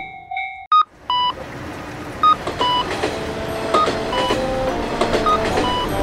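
Electric commuter train running past, with short electronic beeps repeating about twice a second.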